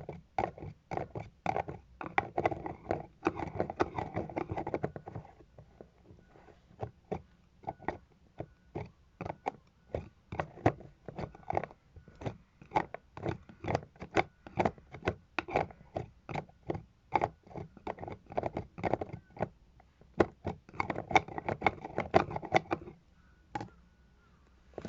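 Cosmetic container lids being handled: a long run of sharp clicks and taps, about two or three a second, with two stretches of scraping and rubbing, a few seconds in and again near the end.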